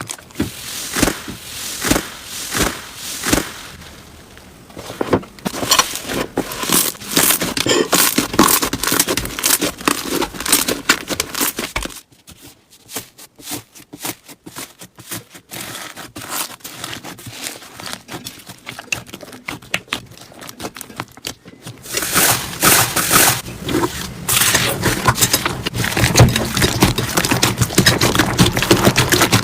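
Slime being squeezed and pressed by hand, making dense crackling and clicking sounds. It quiets from about twelve seconds in, then grows loud and busy again a little past twenty seconds.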